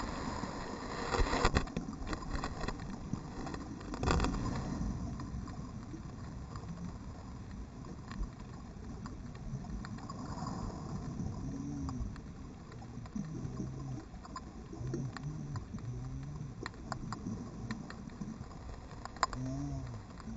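Underwater sound picked up by a GoPro in its waterproof housing lying on the seabed: a muffled low wash of water with scattered clicks and knocks, the loudest knocks about a second in and again around four seconds. In the second half, several low sounds rise and fall in pitch.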